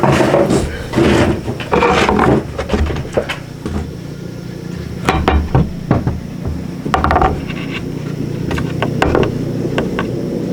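Cups and glasses knocking and clinking as they are handled and set down on a wooden table, a run of irregular knocks over a steady low hum.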